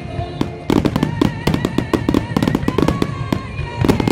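Fireworks going off in rapid bangs and crackles over loud music with sustained melodic tones; the bangs ease for a moment near the start, then come thick and fast again.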